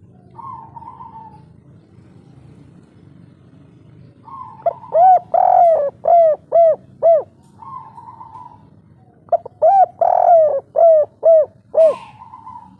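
Spotted dove (tekukur) cooing its "kuk 3" song in two loud phrases, about 4.5 and 9.5 seconds in. Each phrase is a run of short arching coos with one longer drawn-out note, led in by softer buzzy notes.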